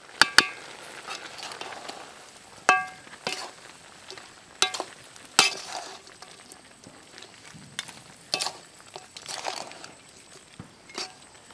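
Pork pieces frying in a large metal kadai with a low steady sizzle, the fat rendered out of the meat serving as the only oil, while a metal spatula stirs them through freshly added curry masala powder. The spatula scrapes and clinks against the pan every second or so, and a few strikes leave the pan ringing briefly.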